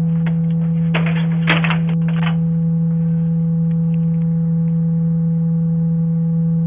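Loud, steady electrical hum: one low tone with fainter higher tones above it, holding level throughout. A cluster of clicks and crackles comes about one to two seconds in.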